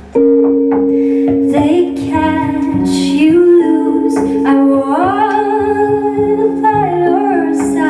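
Live band music: a woman singing into a microphone over electric guitar and double bass, with steady held tones sounding under the voice. The voice enters a second or two in and slides between long sustained notes.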